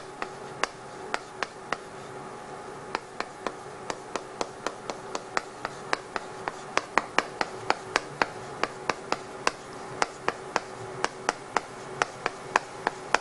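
Chalk tapping and clicking against a chalkboard while Korean letters are written, a quick irregular run of sharp taps, about three or four a second, one per stroke.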